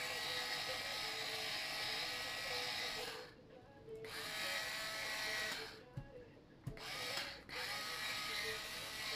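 Electric pepper grinder whirring as it grinds peppercorns, run in a few long bursts with short stops about three and six seconds in.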